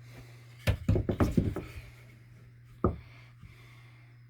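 Wooden sticks being handled and knocked against the drywall: a quick clatter of knocks about a second in, then one sharp knock near the end of the third second.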